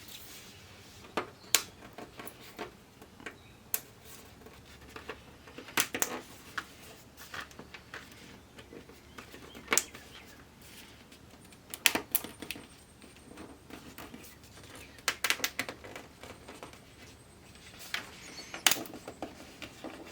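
Irregular sharp clicks and light knocks of hands handling and fitting LCD TV backlight parts during reassembly, with small clusters of clicks now and then.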